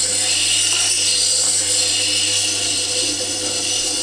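Tormek T8 sharpener's diamond wheel grinding the steel bevel of a chisel: a steady hiss over the low hum of the machine's motor.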